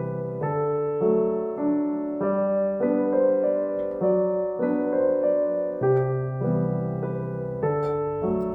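Background music: a gentle piano or electric-piano tune, chords changing about every half second in a steady rhythm.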